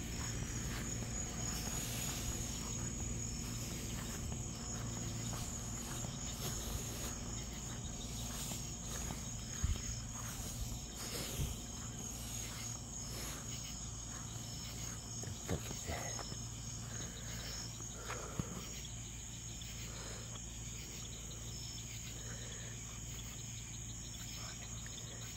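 Crickets chirping steadily in a continuous high trill, over a low steady hum, with a few scattered soft knocks or rustles.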